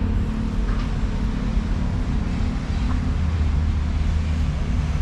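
Steady low rumble with an even hiss above it: open-air background noise, no distinct events.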